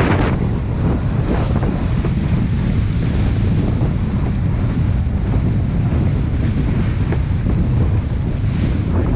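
Loud wind buffeting the microphone while kitesurfing, over rushing water, with a few short splashes near the start and near the end.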